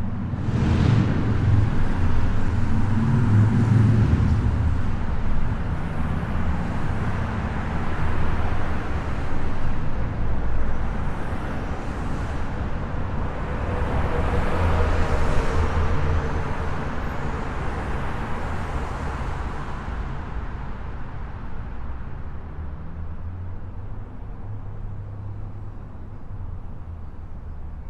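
Highway traffic noise: a steady rush of tyres and engines, swelling as vehicles pass one after another, then easing to a quieter, even drone over the last several seconds.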